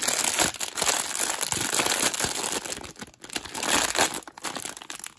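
Silver foil blind-box pouch crinkling as it is opened and crumpled by hand, a continuous crackle with short breaks about three seconds in and just after four seconds.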